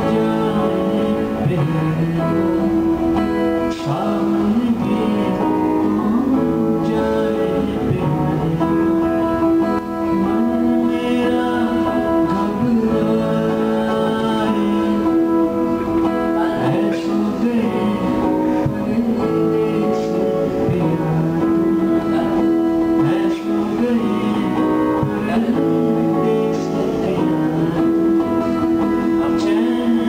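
Live music: a strummed acoustic guitar with an electric guitar playing along, and a man singing into a microphone.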